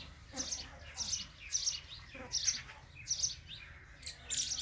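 Sparrow chirping: a steady series of short, high chirps at about two a second.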